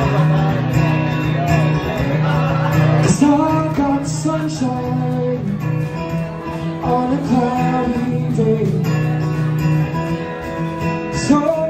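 Live acoustic guitar strummed in steady chords while a man sings a melody over it.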